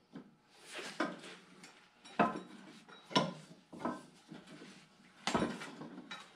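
Sharp metallic clinks and knocks, about five spaced roughly a second apart, from a puller being worked to draw a pulley off its shaft.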